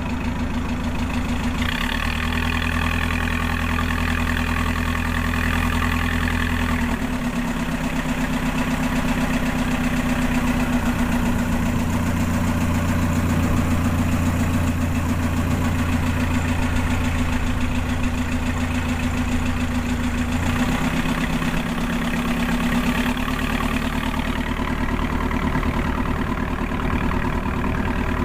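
A small wooden fishing boat's engine running steadily, a low hum whose note shifts slightly a few times as its speed changes.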